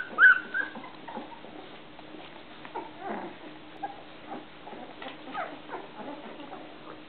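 Eleven-day-old golden retriever puppies squeaking and whimpering: a few loud, high squeals in the first half-second, then softer, shorter squeaks and grunts scattered throughout.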